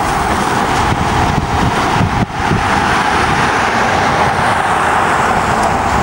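Steady outdoor rushing noise of road traffic and wind on the microphone.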